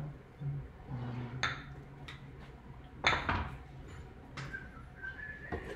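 Spoons and a ladle clinking and scraping against ceramic bowls and a pot while curry is served, a few separate clinks with the loudest about three seconds in.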